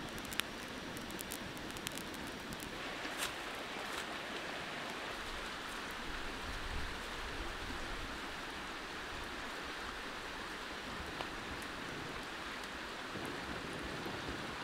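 Wood fire burning under a pan: a steady hiss with a few sharp crackling pops in the first few seconds and once more near the end.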